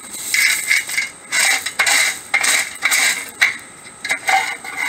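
Screed bar dragged back and forth through 3/4-inch washed stone, the gravel scraping and clattering in quick strokes of about two a second as the setting bed is levelled.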